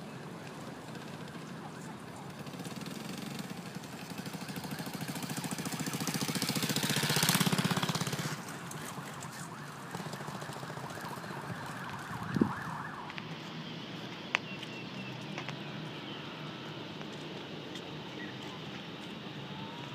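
A motor vehicle passing close by, growing louder to a peak about seven seconds in and then falling away, over steady outdoor background noise. A single sharp knock comes a few seconds later.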